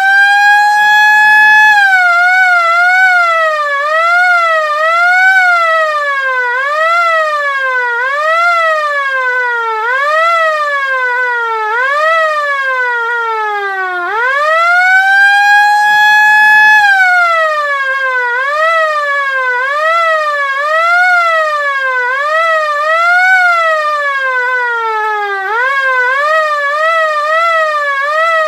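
LK-JDW105 air raid siren wailing loudly. It winds up to a steady high tone, then its pitch rises and falls about once a second while sinking lower. About halfway through it winds back up to the high tone and repeats the same pattern, winding up again near the end.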